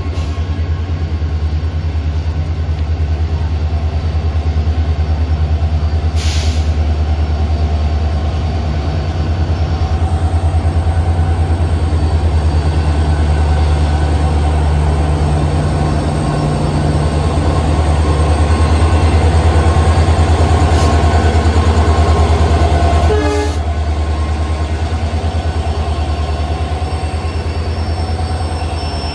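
WDP4D diesel-electric locomotive's EMD 16-cylinder two-stroke engine throbbing steadily as the locomotive rolls in and stops right alongside, with a short hiss of air about six seconds in.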